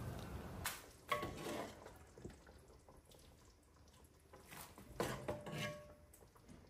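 A few light clinks and knocks of a bowl and cookware being handled at the stove, spread out with quiet stretches between, a couple of them leaving a short ring.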